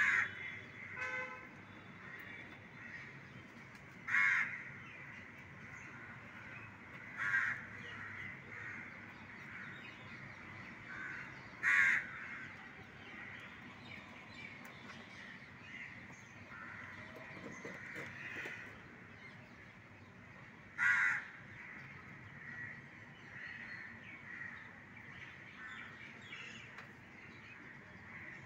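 Crows cawing: about half a dozen short calls a few seconds apart, with a longer gap between them near the middle, over a steady low background noise.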